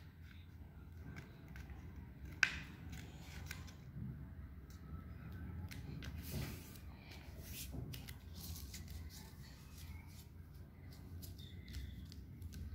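A sheet of red craft paper being folded and pressed flat by hand on a hard floor: faint rustling and crinkling with scattered light taps, one sharper tap about two and a half seconds in.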